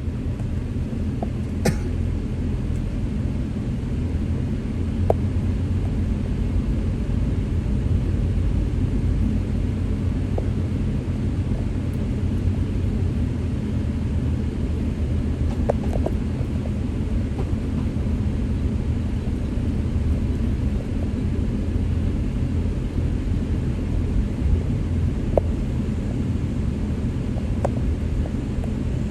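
Street ambience: a steady low rumble of passing traffic, with a few short clicks and knocks scattered through it.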